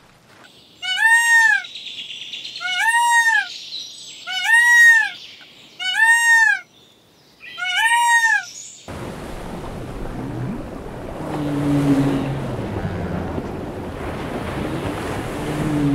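Male Indian peafowl (peacock) calling: five loud, high, meow-like calls about a second and a half apart, each rising then falling in pitch. About nine seconds in, these give way to a steady rush of sea water, with a short low tone twice.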